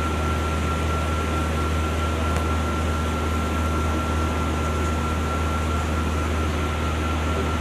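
Steady low hum under an even hiss, with a thin steady high tone above it, unchanging throughout.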